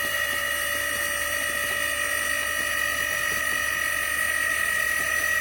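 FlexTail Tiny Pump, a small battery-powered electric air pump, running with a steady high-pitched whine as it inflates a camping air mattress.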